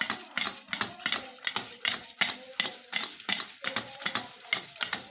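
Steel spoon beating curd in a stainless steel bowl, clinking and scraping against the bowl's side in a steady rhythm of about three strokes a second.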